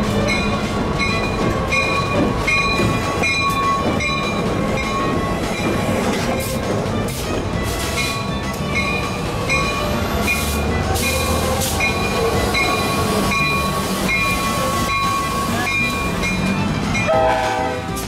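Amtrak GP38H-3 No. 523, a rebuilt EMD GP40TC with Roots blowers in place of its turbocharger, passing at the head of a train, its diesel running. A bell rings evenly about two to three times a second, and the horn sounds about a second before the end.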